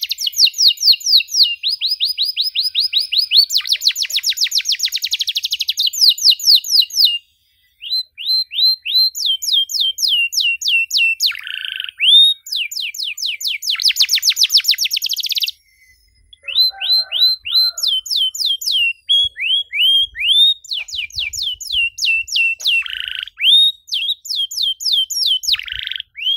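Domestic canary singing long, fast trills of repeated downsweeping notes, moving from one trill phrase to the next. The song breaks off briefly twice, about a third of the way in and just past halfway.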